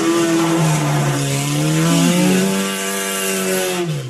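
Racing rally car engine running hard at high revs, its pitch holding fairly steady with small dips and a brief wobble. It fades away near the end.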